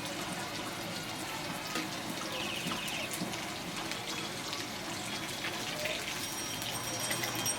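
Marinated chicken pieces sizzling in hot oil in a kadai: a steady hiss with scattered crackles and pops.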